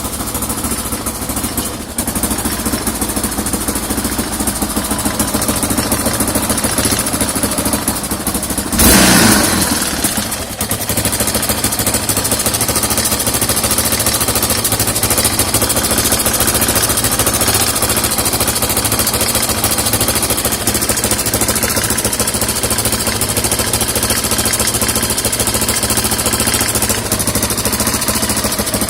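Yamaha XT600 Ténéré's single-cylinder four-stroke engine idling steadily after a full rebuild, carburettors freshly cleaned and set. It is blipped once about nine seconds in, then settles back to a steady idle.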